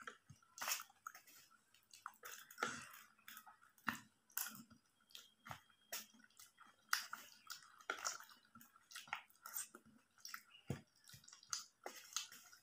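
Close-miked wet chewing and squishing of yoghurt-soaked samosa chaat, with a spoon scraping the plate. Irregular clicks and smacks come a few times a second.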